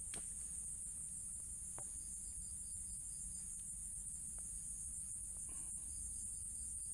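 Steady high-pitched chorus of insects, with two short runs of faint, quick, evenly spaced chirps, about four a second, partway through and near the end.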